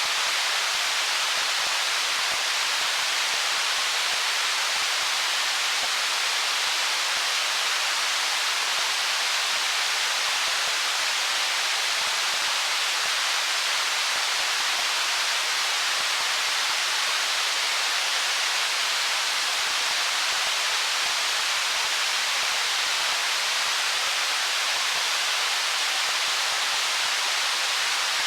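Stream water running over rocks: a steady, even rush with no separate splashes or changes.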